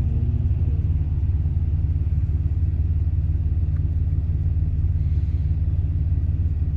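Intermodal freight train rolling past, a steady low rumble heard from inside a car.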